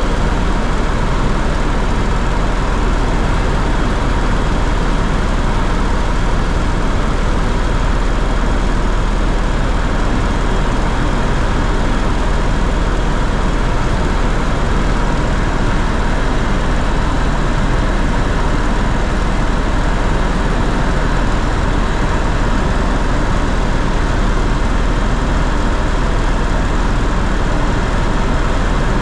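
Steady engine and airflow noise heard inside the cabin of a small sightseeing aircraft in cruise, a loud even rush with a faint steady whine.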